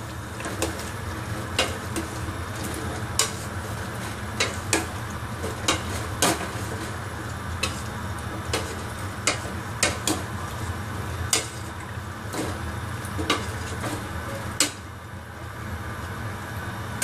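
Beef, carrot and potato chunks being stirred in a stainless steel pot: irregular knocks and scrapes of the spoon against the metal, about one a second, over a steady low hum.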